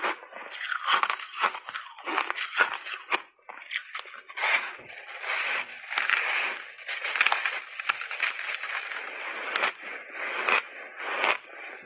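Crunching and crackling of chunks of purple ice being bitten and chewed. Scattered sharp crackles over the first few seconds, then dense crunching from about four seconds in, thinning to separate crackles near the end.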